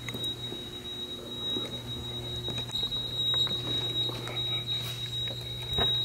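An alarm sounding one steady, unbroken high-pitched tone over a low hum, with scattered footsteps and small knocks.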